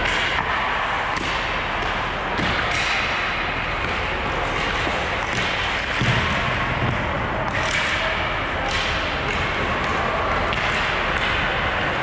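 Ice hockey play in an arena: a steady wash of noise with scattered sharp clacks and thuds of sticks, puck and boards, the loudest a low thud about six seconds in.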